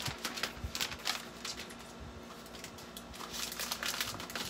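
Crinkly rustling of the thin protective paper wrap being peeled off a new iMac. The rustles come and go, loudest near the start and again near the end.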